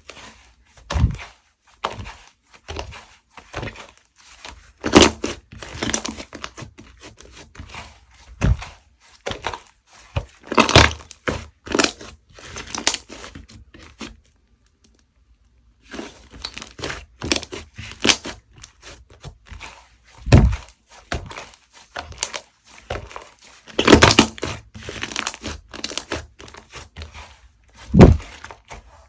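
Clay-mixed slime being squished and stretched by hand, giving dense irregular crackling clicks and little air-bubble pops, with a few dull thumps as it is slapped or pressed. There is a brief silent gap about midway.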